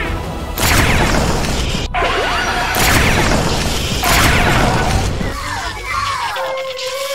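Music with three loud crashing hits about a second and a half apart as a LEGO train rolls down its track into a slime-filled trough and derails.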